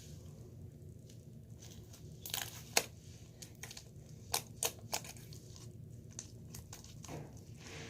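Scattered soft clicks and crinkles of objects being handled, over a steady low hum. The sharpest click comes near the middle.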